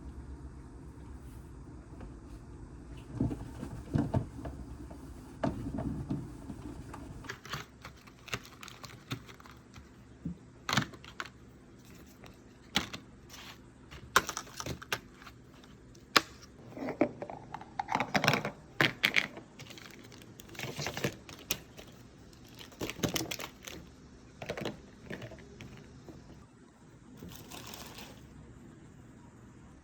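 Irregular light clicks, taps and knocks of small objects being handled and set down, with a low steady rumble underneath for the first several seconds and a short hiss near the end.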